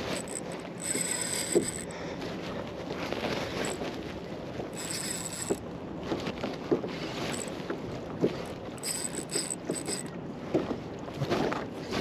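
Water lapping against a small boat's hull, with wind on the microphone and scattered light knocks. Three short hissing bursts come about a second in, around the middle, and again a few seconds later.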